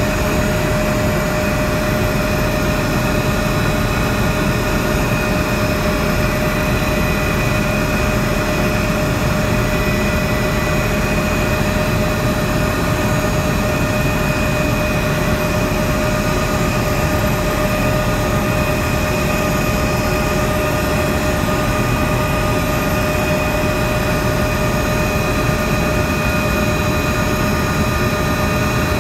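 Helicopter in steady cruise flight heard from inside the cabin: a constant rush of engine and rotor noise with steady whining tones on top.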